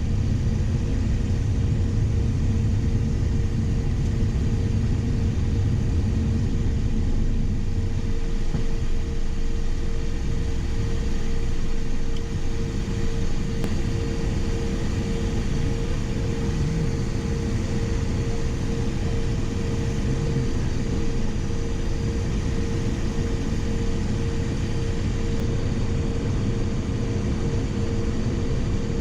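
Cessna Citation XL business jet with its engines running: a steady low rumble with a steady whine over it.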